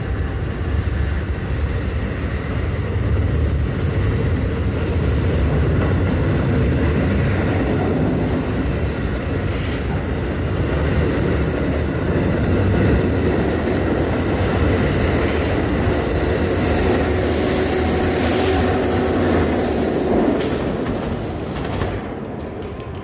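NJ Transit Northeast Corridor Line commuter train of Multilevel coaches, led by its cab car, departing the station. A steady loud rumble of the passing cars, with some high wheel squeal, falls away near the end.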